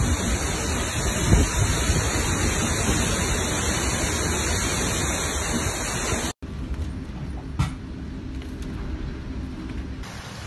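Heavy storm rain with strong wind gusts buffeting the microphone, a loud steady rush of noise with a gusty low rumble. About six seconds in it cuts off abruptly to a quieter, steady rain hiss with one brief knock.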